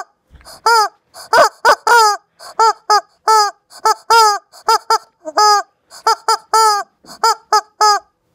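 Rubber chicken squeeze toy squawking over and over, about three short squawks a second, each dropping in pitch at its end.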